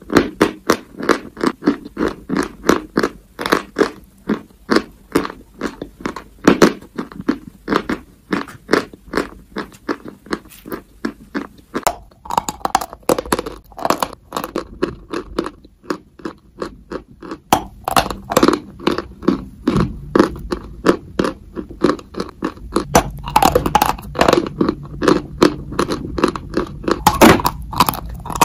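Close-miked biting and chewing of dry, crumbly white chalk: a fast run of crisp crunches, about three a second, with crumbling and scraping between bites. Partway through, the crunches turn coarser and more irregular as a larger chalky block is bitten.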